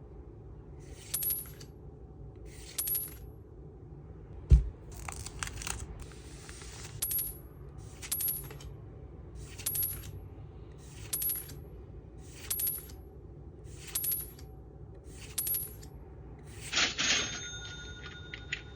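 Pokémon trading cards being slid off a stack one by one, a short crisp swish about every second and a half. A sharp thump comes about four and a half seconds in, and near the end a louder rustle is followed by a brief steady ringing tone.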